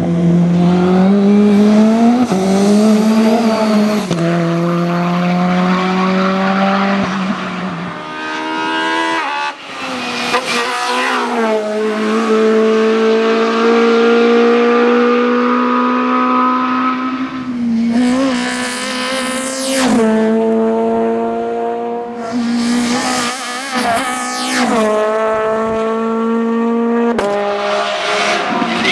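Race car engines running at high revs on a hill-climb course, the pitch climbing through each gear and dropping back at the shifts, several times over.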